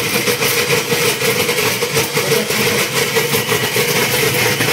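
Electric mixer grinder running steadily at full speed, its motor giving a continuous hum while the blades grind raw mutton into mince in the steel jar.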